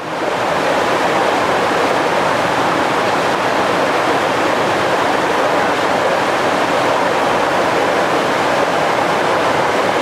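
Waterfall cascading over rocks into a pool: a steady, loud rush of falling water that swells in at the start and then holds even.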